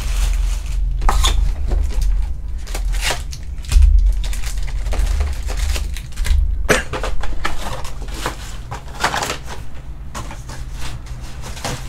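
Foil-wrapped trading card packs being taken out of a 2021 Panini Prizm UFC cardboard box and stacked on a table: crinkling foil, cardboard scraping and light taps, with a dull thump about four seconds in, over a steady low hum.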